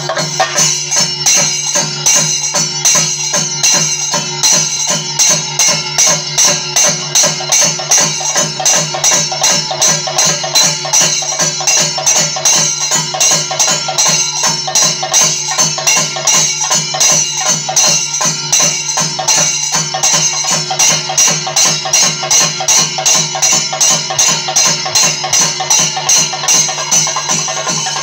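Ensemble of Kerala chenda drums beaten with sticks: dense, fast rolls with a steady pulse of about two accents a second.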